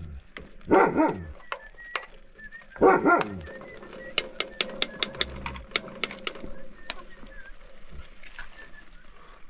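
A dog barking twice, short loud barks falling in pitch, about one and three seconds in. These are followed by a run of sharp clicks or knocks, about four a second, lasting some three seconds.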